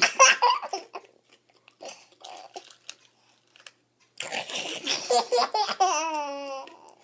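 A baby laughing, a short burst early on and a long laugh from about four seconds in that ends in a high, wavering, falling tone, with the crunch of dry cereal being chewed in the first second.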